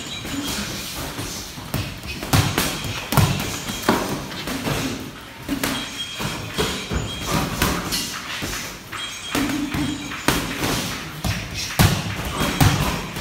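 Boxing gloves thudding as punches land during sparring, in irregular single hits and short combinations.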